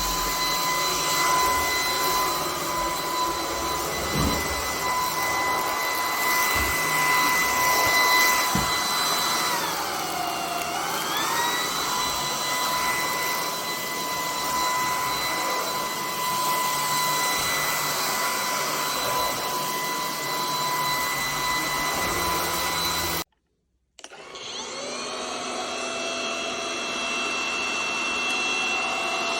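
Anyson cordless stick vacuum running with a steady high motor whine over a rush of airflow; about ten seconds in the pitch briefly sags and recovers. Near the end the sound cuts out for a moment, then the motor starts up again, its whine rising in steps as it spins up.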